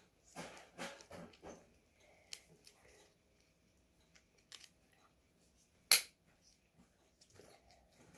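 Small hard-plastic toy capsule being handled as someone works it open: scattered soft clicks and rustles, with one sharp plastic click about six seconds in, the loudest sound.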